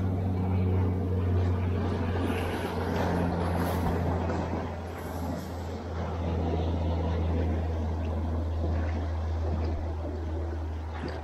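A steady, low engine drone that holds one even pitch, then cuts off suddenly at the very end.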